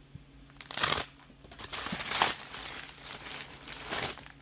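Packaging being torn open and crinkled as a parts package is unwrapped, in three rustling spells: about a second in, around two seconds in, and briefly near the end.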